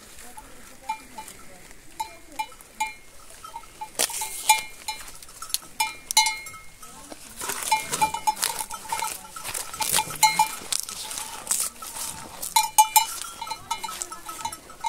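A cow eating corn, a bell on her clinking in short, irregular metallic rings over crunching and rustling, busier from about halfway through.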